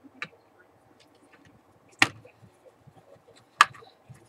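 Sharp clicks and taps of parts being handled and pressed together as a Fluke 8020B multimeter is reassembled: a faint click just after the start, then two loud clicks about two and three and a half seconds in, with a few faint ticks between.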